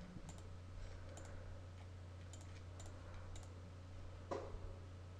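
Faint computer mouse clicks over a steady low electrical hum, with one soft thump about four seconds in.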